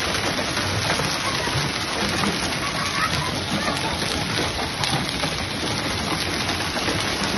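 Heavy hail falling: a dense, steady pattering of small ice stones striking paving and the ground.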